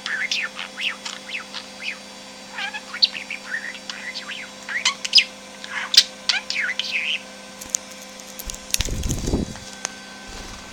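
Budgerigar chattering and warbling in quick chirps and sliding whistles for about seven seconds. A brief low rumble or bump follows at about nine seconds.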